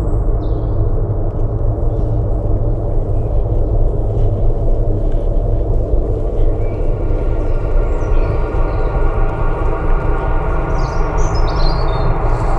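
Steady, deep droning hum made of many held tones, with a few short bird-like chirps near the end.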